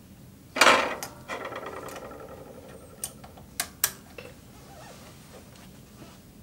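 Metal bobbin and bobbin case of a Kenmore 1752 sewing machine being handled and fitted into the machine: a sharp rattle about half a second in, a rasping rattle for about a second after it, then three sharp clicks between three and four seconds in as the case is snapped into place under the needle plate.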